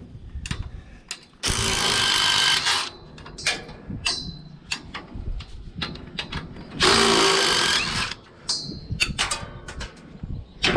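A power drill/driver fitted with a socket runs in two bursts of about a second and a half each, spinning nuts off 5/16 bolts on an old New Holland 851 baler. Light metal clicks and knocks from handling the parts come between the bursts.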